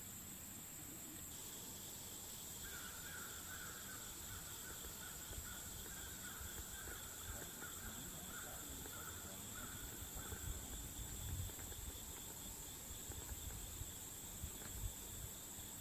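Faint outdoor ambience: a steady high insect drone, with a pulsing, repeated call from about three seconds in to about ten seconds, and a few soft low bumps near the end.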